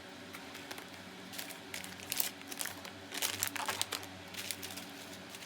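Treat packaging crinkling in bursts as it is handled, busiest about two-thirds of the way through.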